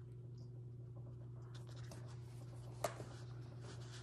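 Carving knife cutting a V-cut into a small wooden block: faint scratchy cutting strokes, with one sharp click about three seconds in, over a steady low hum.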